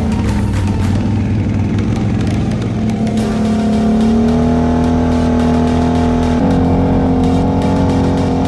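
ATV engine running at steady revs while the ATV is ridden, its pitch holding level and jumping up abruptly twice.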